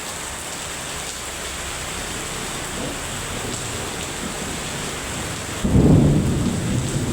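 Heavy rain falling steadily. About five and a half seconds in, a sudden loud clap of thunder rumbles low and dies away toward the end.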